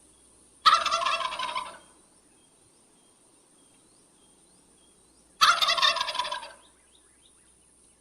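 Male wild turkey gobbling twice, each gobble a loud, rapid, gurgling rattle about a second long, the first less than a second in and the second about five seconds in.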